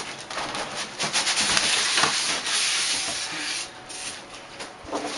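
Corrugated cardboard carton being slid up off the white foam packing around a PC case, cardboard rubbing and scraping against the foam. Loud scraping for about three and a half seconds, then a quieter rustle near the end.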